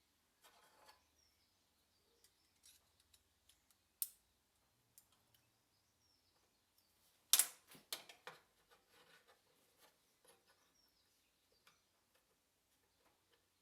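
Scattered light clicks and taps, with one sharp click about four seconds in and a quick cluster of louder clicks just past halfway. Faint birdsong in the background.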